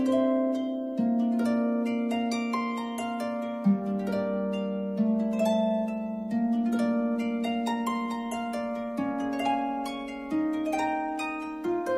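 Background music: a plucked-string melody of many short notes over slower-changing low notes.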